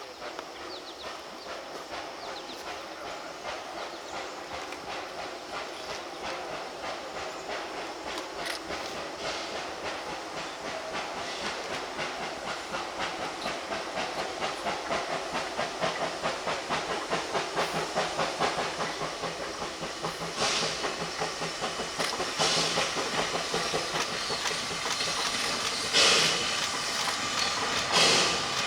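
Narrow-gauge steam locomotive working, its rapid exhaust beats over a hiss of steam, growing louder as it approaches. Several louder blasts of steam come near the end.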